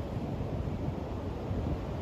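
Ocean surf breaking and washing up a sandy beach, a steady noise with wind rumbling on the microphone.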